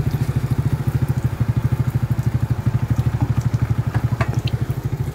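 An engine idling with a fast, even chugging pulse.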